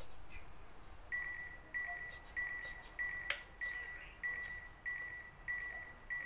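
Electronic beeping from the model tow truck's electronics: a steady high beep about half a second long, repeating roughly every 0.6 s, starting about a second in. A sharp click comes partway through the beeping.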